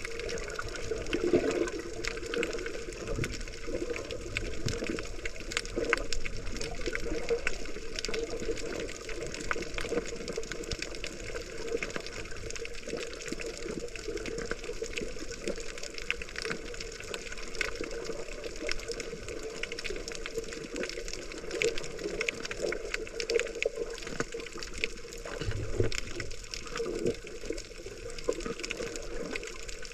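Muffled water sloshing and bubbling as heard through a GoPro's waterproof housing while snorkeling, with a steady hum and many small crackling clicks.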